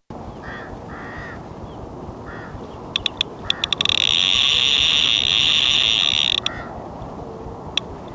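Fishing reel's drag giving line as a hooked barbel pulls: a few clicks, then a steady buzz of about two and a half seconds that stops suddenly, then more single clicks. Steady wind noise on the microphone runs underneath.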